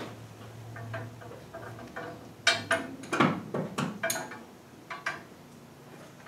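Scattered light clicks and metal clinks from handling parts in a car's front suspension, with a few sharper knocks about two and a half to four seconds in.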